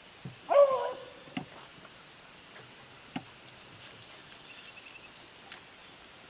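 A rabbit-hunting dog gives a single short bay about half a second in, a pitched call that holds and then drops slightly, followed by a few faint clicks.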